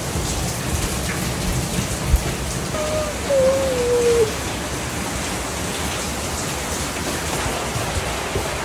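Steady rain hiss, with a few low thumps of footsteps and a short wavering tone that falls slightly about three seconds in.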